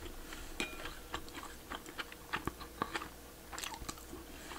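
A person chewing and eating close to the microphone, with irregular small mouth clicks and a brief ceramic clink of a bowl about half a second in.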